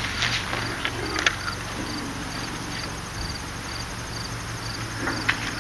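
A cricket chirping steadily, about two short high chirps a second, with a few light clicks in the first second or so.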